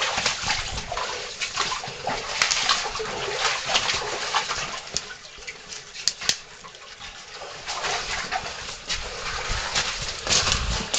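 Caver crawling through a low, wet cave crawlway: water splashing and sloshing, with irregular knocks and scrapes against rock.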